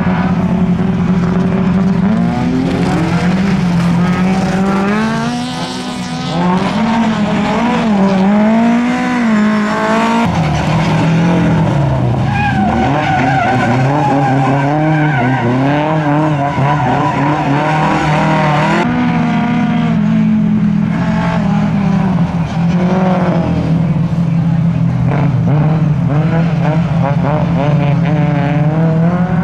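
Race-prepared Lada saloon's engine revving up and down repeatedly as it is driven hard through tight corners, with tyre squeal as the car slides sideways.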